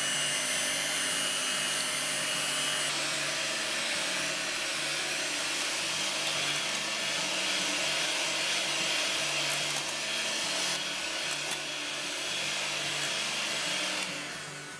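Electric hand mixer running steadily at high speed, its wire beaters whipping cream in a glass bowl as the cream thickens into stiff whipped cream.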